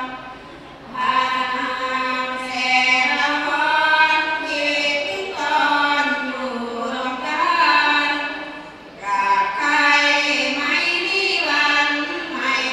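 A group of Thai women singing sarabhanya, Buddhist devotional verse chanted to a melody, unaccompanied. Long sung phrases glide between notes, with short breath pauses about a second in and again about nine seconds in.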